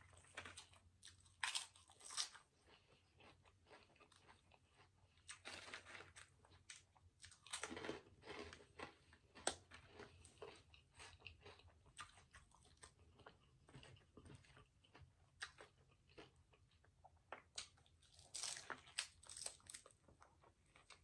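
Close-miked eating: a person chewing and biting into chili cheese hot dogs, with irregular crisp crunches.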